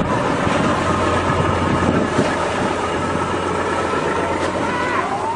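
Ship's engine running with a steady drone and hum, mixed with wind noise on the microphone. Near the end a tone begins to rise in pitch, like the start of a siren or alarm.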